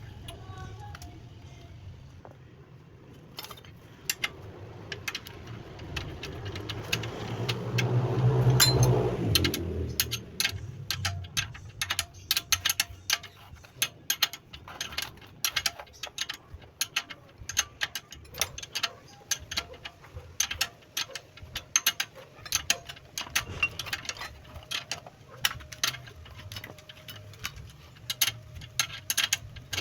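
Rapid, irregular metallic clicking and tapping of hand tools on metal parts, as in shock absorber work. Before it, a louder rushing swell with a low hum builds and peaks about nine seconds in.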